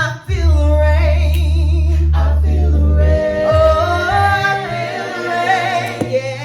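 A cappella vocal group singing in harmony, with a low bass part holding a long note for about the first three seconds under the sustained upper voices.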